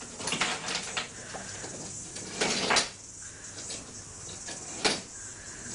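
Wooden toy trains and track pieces clattering and clicking as a toddler handles them on a train table. There are a few short rattles near the start, a longer clatter a little past two seconds in, and one sharp click near the end.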